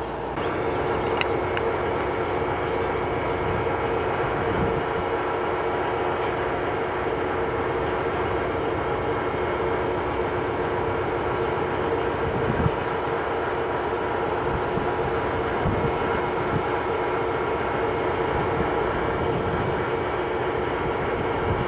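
Amtrak Midwest Siemens Charger diesel locomotive standing with its engine running, a steady hum with several held tones that does not change.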